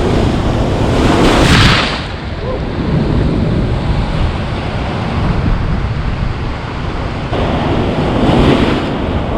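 Sea surf washing against rocks, with wind buffeting the microphone; the wash swells about a second in and again near the end.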